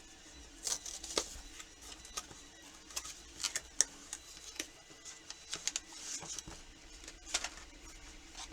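Irregular light clicks and taps of a small object being handled, a dozen or so scattered unevenly, with faint rustling between them.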